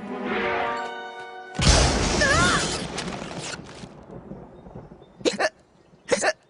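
Cartoon soundtrack: a short music cue, then a loud blast that fades away over about two seconds, then two quick cartoon hiccups about a second apart near the end.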